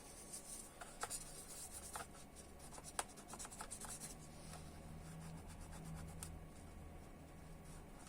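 Faint dry rubbing of a paper napkin wiping laptop cooling parts, with a few light clicks and taps of handling in the first few seconds.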